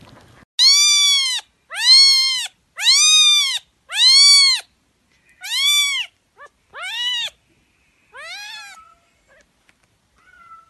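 Cat meowing: four long, loud meows about a second apart, each rising and falling in pitch, then several shorter, fainter meows.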